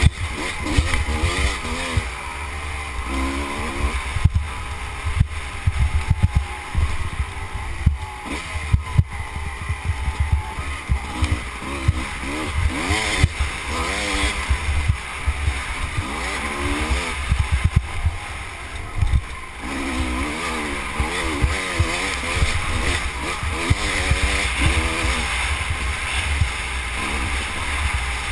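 Off-road motorcycle engine revving up and down repeatedly as it is ridden hard over rough trail, heard from a helmet camera with heavy wind rumble on the microphone and frequent knocks from bumps.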